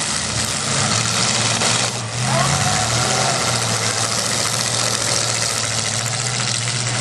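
Demolition derby cars' engines running together in the arena, a dense, loud noise over a steady low drone, dipping briefly about two seconds in.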